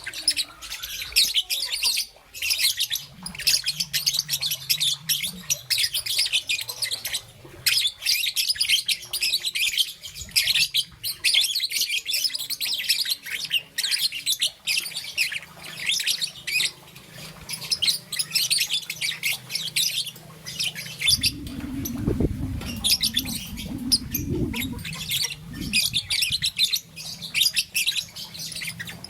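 Young peach-faced lovebird chattering in a fast, unbroken stream of high, shrill chirps and squawks, with only brief pauses. In the second half a low, muffled sound runs under the chirping for a few seconds.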